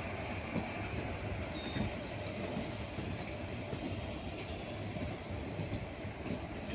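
Indian Railways ICF passenger coach running on the track at speed: a steady rumble of wheels on rail with a few faint knocks.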